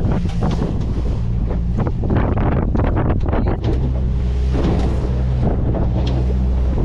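Stabicraft 1450's outboard motor running steadily under way, with heavy wind buffeting the microphone. The engine hum is clearest in the second half.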